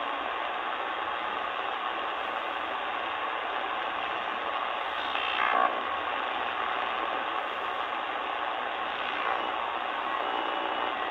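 Sangean ATS-909X2 shortwave receiver in upper sideband mode giving out steady band noise as it is tuned up the 4 MHz band. About five seconds in, a whistle sweeps quickly down in pitch as a signal is tuned across.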